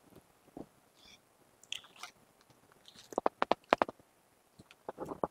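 People sipping hot coffee from ceramic mugs: quiet mouth sounds, with a quick run of short sips and lip clicks about three seconds in and a few more near the end.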